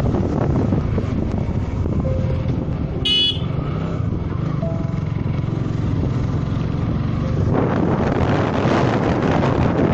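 Motorcycle engine running at road speed under wind buffeting on the microphone, with a short vehicle horn toot about three seconds in. The wind noise grows stronger in the last couple of seconds.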